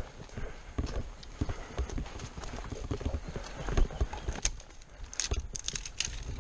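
Footsteps through dry leaf litter, twigs and undergrowth, with irregular thumps and rustling as the walker pushes through brush; a cluster of sharp twig crackles and snaps comes about four and a half to six seconds in.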